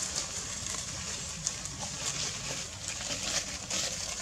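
Dry leaf litter rustling and crackling irregularly, a few times a second, as macaques move about on it, over a steady low background noise.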